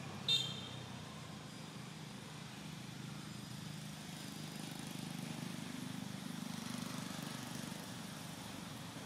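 Steady low outdoor rumble that swells a little in the middle, with one short, sharp high-pitched squeak about a third of a second in.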